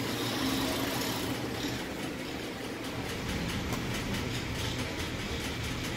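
A steady, low mechanical hum with an even hiss over it, unchanging throughout.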